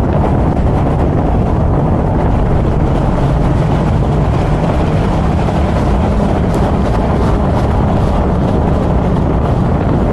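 Steady wind buffeting on the microphone over a BMW Z4 M40i's turbocharged inline-six running as the car drives.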